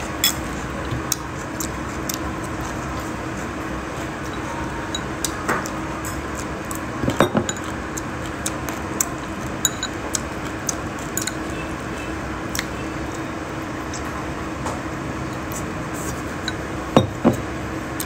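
Chopsticks clinking against a ceramic bowl now and then, with a small cluster of knocks about seven seconds in and two sharper ones near the end, over a steady background hum.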